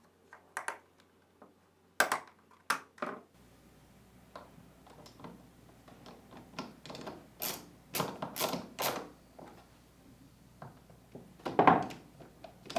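Scattered sharp plastic clicks and taps from a washer's encoder board being snapped onto the back of its plastic console and screwed down: a few in the first seconds, a quick run of them about seven to nine seconds in, and a louder knock near the end.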